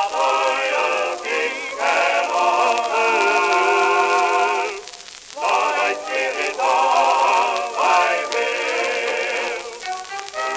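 Music from a 1921 acoustic-era Columbia 78 rpm shellac record of a popular song: held notes with a wavering vibrato, in a narrow, thin-sounding range with no deep bass, briefly dipping about five seconds in.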